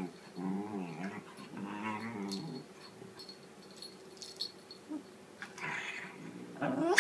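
Whippet moaning in long, wavering, grumbling groans, telling off another dog. The pitch bends up and down through the first two and a half seconds. Near the end comes another noisy grumble, then a rising whine.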